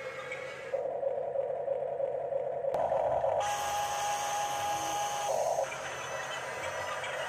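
Whine of a Huina 1569 RC bulldozer's small electric drive motors and gearing as it pushes soil. The sound changes abruptly a few times, with a steady high tone held for about two seconds in the middle.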